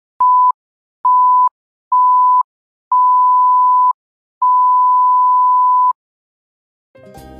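Electronic beep at one steady pitch, sounding five times, each beep longer than the last, the final one about a second and a half long. A short silence follows, and music starts near the end.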